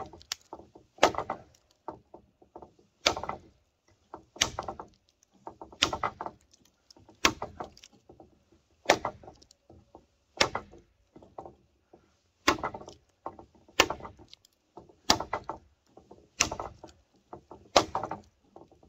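Heavy machete blade chopping into a dry dead aspen trunk, a dozen or so sharp strikes about one every second and a half, all at the same notch, with fainter knocks between them.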